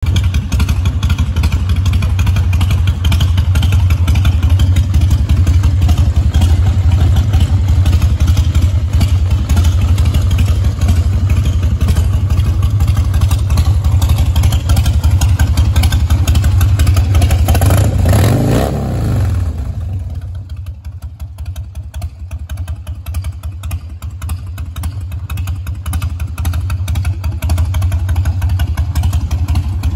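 2003 Harley-Davidson Dyna Wide Glide's Twin Cam 88 V-twin idling with a steady low pulse. About eighteen seconds in, a brief sound falls in pitch. After that the engine is quieter for a few seconds, then builds back.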